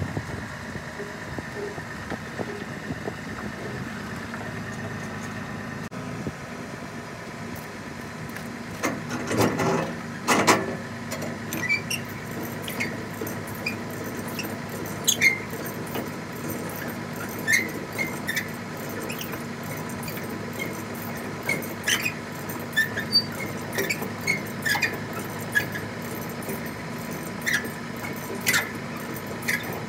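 Steady vehicle running noise. From about nine seconds in, frequent short squeaks and rattles join it, after a couple of louder knocks.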